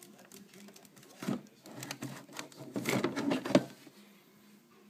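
Hard plastic clicking and clattering as a Ryobi cordless drill is handled in its moulded plastic kit case: a run of irregular knocks and clicks about a second in, with the sharpest click near the end of the run.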